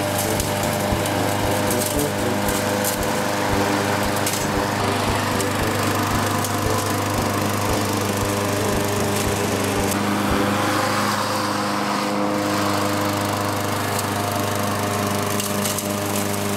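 Gasoline walk-behind rotary lawn mower engine running steadily while cutting grass, with some light clicks in the first few seconds.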